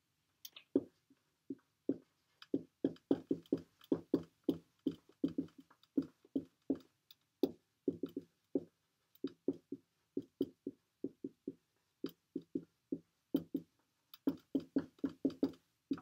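Dry-erase marker writing on a whiteboard: a quick, irregular run of short strokes as the letters are written.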